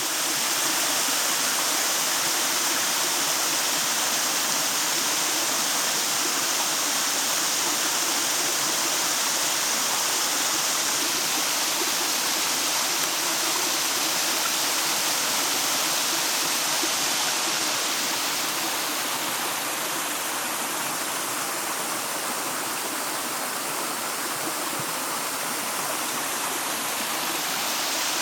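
Waterfall: a steady rush of falling, splashing water that eases off slightly for a while in the second half.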